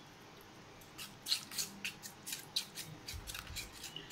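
Metal spoon scraping and clicking against a steel bowl as it stirs a thick yogurt-and-spice marinade, a quick irregular run of short strokes starting about a second in.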